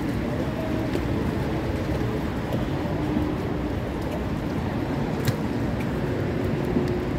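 Steady low rumble of an open-air metro and train station platform, with a faint humming tone from a train that grows stronger near the end and one sharp click about five seconds in.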